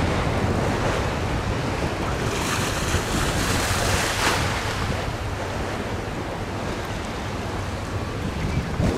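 Wind buffeting the microphone over the rush of choppy river water, with a stronger gust about three to four seconds in.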